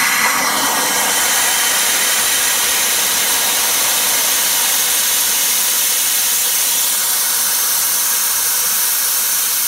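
Live-steam locomotive's boiler being blown down after its run: a loud, steady hiss of steam and water jetting out sideways from low on the engine.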